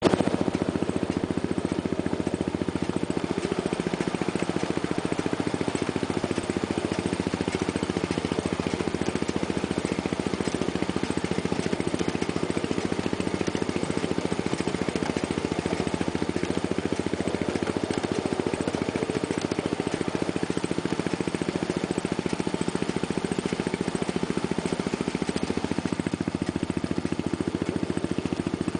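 Small engine of a ride-on scale-model locomotive running steadily as the train rolls along the track, an even, rapidly pulsing note that holds level throughout.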